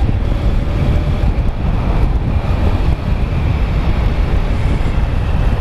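Motorcycle riding along, engine running steadily under heavy wind noise on the microphone.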